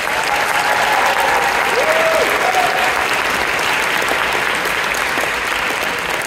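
Audience applauding loudly and steadily in an auditorium.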